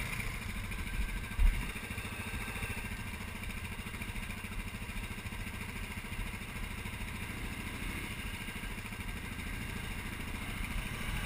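ATV engine running steadily at low speed while crawling over a rocky trail, with one short thump about a second and a half in.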